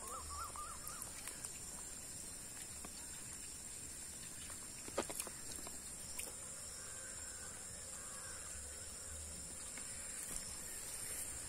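Insects droning steadily at a high pitch outdoors, with a brief warbling animal call in the first second or so and one sharp tap about five seconds in.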